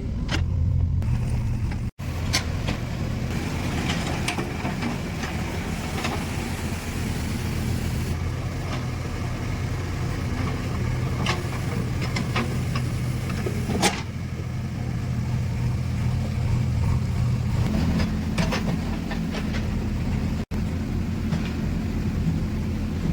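JCB 3DX backhoe loader's diesel engine running steadily, with scattered sharp metallic knocks from the machine working.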